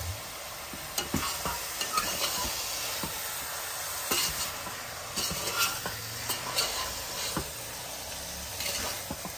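Spiced minced mutton (kheema) sizzling as it fries in a pot, being stirred, with a steady frying hiss. The utensil scrapes and knocks against the pot in irregular clicks.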